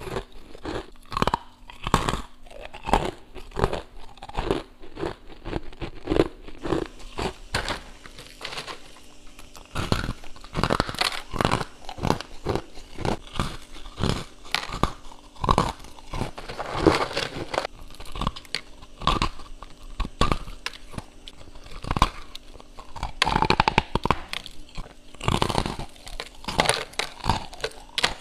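Close-up bites and chewing of hard chunks of freezer frost: many sharp, irregular crunches, one after another, as the frost is bitten off and ground between the teeth.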